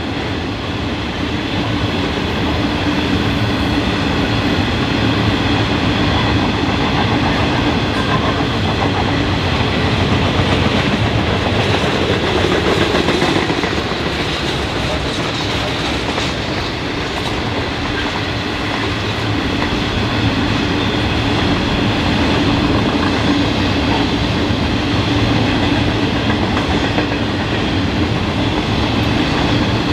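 Freight train of steel hopper wagons rolling past: a steady rolling rumble of wheels on rail, with a constant humming tone running through it.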